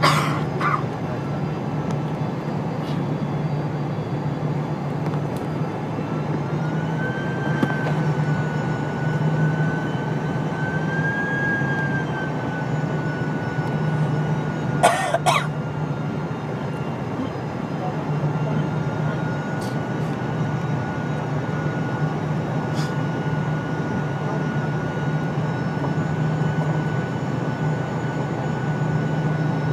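Boeing 787 cabin noise heard from a window seat: a steady drone of engines and airflow with a constant whine that rises slightly about seven seconds in and settles back a few seconds later, as the airliner descends. Two sharp clicks come about halfway through.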